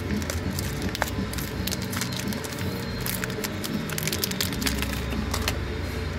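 Plastic packaging of a disposable vape being handled and torn open by hand: many small crackles and snaps, with quiet music underneath.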